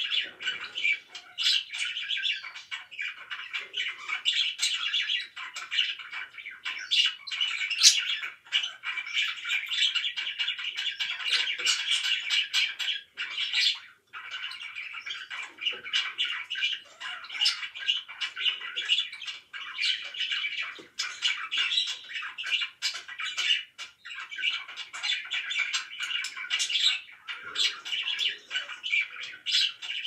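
Pet budgerigars chattering nonstop, a dense stream of short chirps and sharp squawks with only brief lulls.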